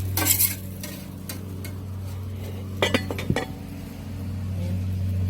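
Metal cooking utensils clinking a few times, with sharp clanks near the start and about three seconds in, over a steady low hum.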